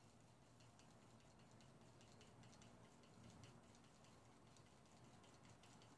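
Faint, quick clicking of a wooden craft stick stirring thin acrylic paint in a small plastic cup, a few clicks a second over near silence.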